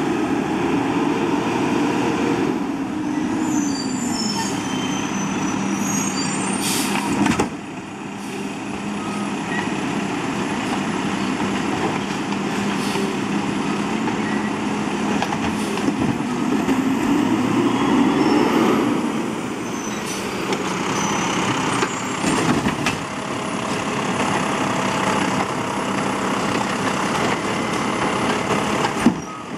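Automated side-loader garbage truck at work: its diesel engine runs and revs up and down as the hydraulic arm lifts a wheeled trash cart and dumps it into the hopper, with a hiss of air brakes and a few knocks of the cart against the truck.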